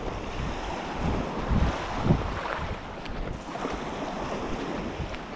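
Lake waves washing onto the shore, with wind buffeting the microphone in gusts, the strongest about two seconds in.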